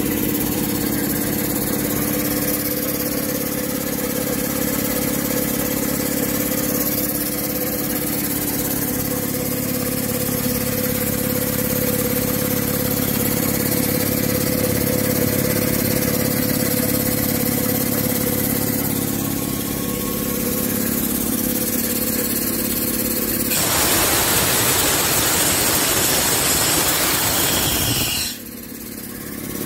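Quincy QT-5 5 hp piston air compressor running steadily under its electric motor, a loud even mechanical drone with a pumping rhythm. About 24 seconds in, air starts hissing hard from the tank's drain valve for several seconds, then cuts off suddenly as the valve is closed.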